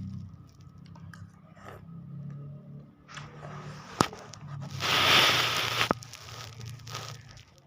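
Close-miked eating sounds of a bowl of chicken noodles: a sharp click about four seconds in, then a loud slurp lasting about a second.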